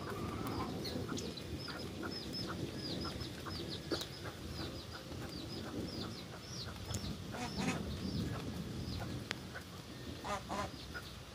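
Leafy moringa sprigs rustling and shaking as they are gripped and pulled off the branch by hand, with a bird chirping repeatedly, about two short high calls a second, until near the end.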